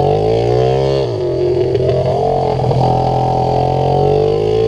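Pit bike's small single-cylinder four-stroke engine heard from onboard while riding. The revs drop off through the first second as the throttle is eased, then pick up again just after a second in and hold fairly steady.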